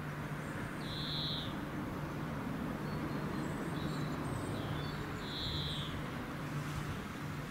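Steady low drone of the distant double-headed Class 66 diesel locomotives on approach; each locomotive has a two-stroke V12 engine. Birds call over it: two clear high calls, about a second in and again about five and a half seconds in, with a few smaller chirps between.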